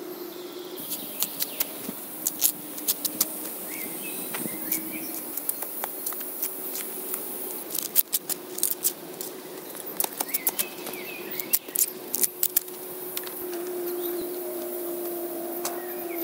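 Irregular sharp clicks and taps of bamboo poles and cord being handled while a bamboo shelter frame is lashed together by hand, in clusters with short gaps between. A steady hum and a few bird chirps sound behind it.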